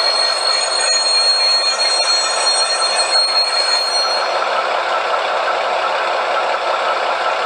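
Diesel engine sound of an ESU V200 model locomotive, played by its sound decoder through the model's small loudspeaker as it runs pulling its train. A steady high whine over the engine sound fades out about four seconds in.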